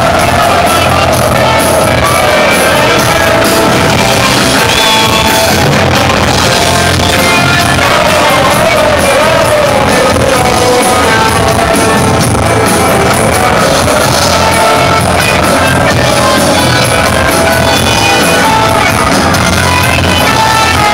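Live rock band playing loud and without a break: drums, electric guitars and saxophone, with a lead voice singing.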